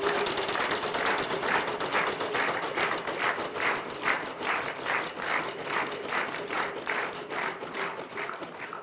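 Game-show prize wheel spinning, its flapper clicking rapidly against the pegs. The clicks slow, spread out and fade as the wheel comes to rest near the end.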